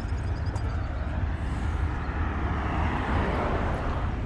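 Car engines running with a low steady hum, and a passing vehicle whose sound swells to a peak about three seconds in and then fades.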